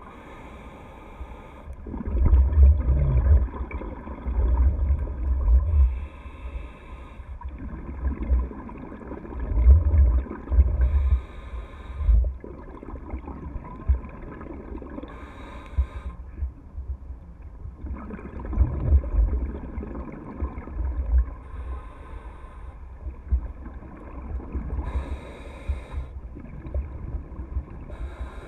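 Scuba diver breathing through a regulator underwater: a short hiss on each inhale, then a long bubbling rumble as the exhaled air leaves the regulator, repeating every few seconds.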